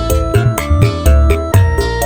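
Instrumental dangdut music played on a single arranger keyboard (orgen tunggal): a steady drum beat with bass and sustained keyboard melody notes.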